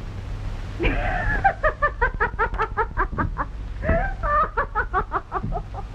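A woman laughing: a long run of quick 'ha-ha' pulses starting about a second in, pausing briefly near the four-second mark and then going on, over a steady low hum.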